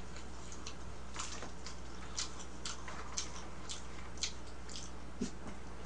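Light, scattered clicks and ticks of eating with chopsticks from plastic food containers, irregular and about one or two a second, over a steady low hum.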